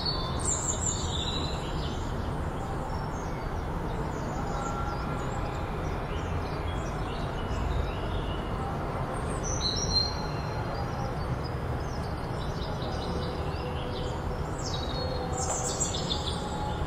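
Birds chirping a few times, near the start, about ten seconds in and near the end, over a steady low background rumble.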